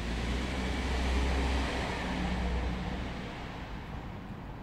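A passing motor vehicle: a steady rumble and rush that swells to its loudest about a second in and fades away by about four seconds in.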